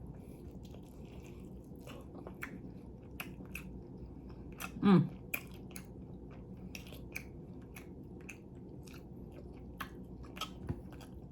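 A person chewing and biting food close to the microphone, with many small wet mouth clicks and crunches, and a brief hummed "mm" about five seconds in.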